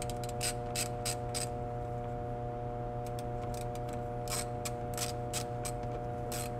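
The 72-tooth reversible ratchet from an Eastvolt socket set clicking in quick runs of strokes as it runs a nut onto a screw. One run of clicks comes in the first second and a half and another from about three and a half seconds on, over a steady hum.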